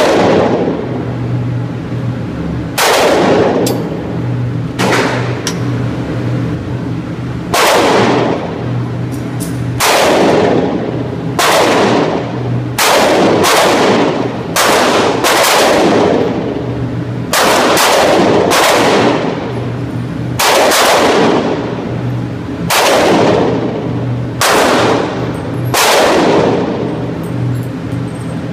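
Glock 27 subcompact pistol firing .40 S&W rounds in slow, deliberate single shots: about twenty sharp reports spaced one to three seconds apart, each with a long echo off the walls of an indoor range. A steady low hum runs underneath.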